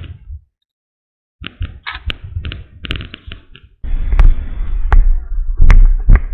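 Crinkling and rustling of the folded vinyl (PVC) of an Intex Challenger K2 inflatable kayak being handled and unfolded, with sharp clicks and, in the second half, loud heavy thumps and rumbling from handling close to the microphone. The sound drops out completely for about a second near the start.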